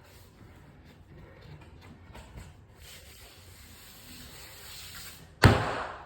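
Laminate floor planks being worked: faint scraping and rubbing, with a steady hiss building toward the end, then one loud sharp knock near the end that dies away within about half a second.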